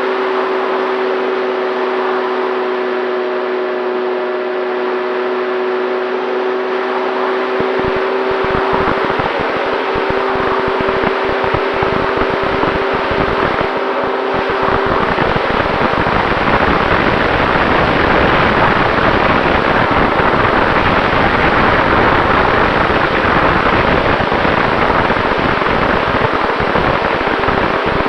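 Electric motor and pusher propeller of an FX-79 flying wing in flight, giving a steady whine. Wind rush and buffeting on the microphone grow from about a quarter of the way in. Around halfway the whine fades out, leaving loud wind rush.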